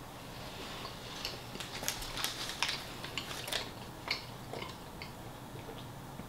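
A person chewing a mouthful of food, with wet smacking and clicking mouth sounds that are busiest in the middle.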